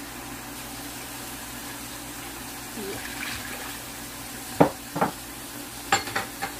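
Pot of water with onion and whole spices heating on the stove, a steady low hum with faint water sound. In the second half come five sharp knocks, two and then three quicker ones, the first the loudest.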